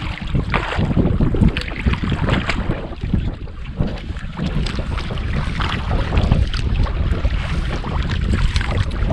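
Wind buffeting the microphone, with a wooden canoe paddle dipping and splashing in choppy lake water on each stroke.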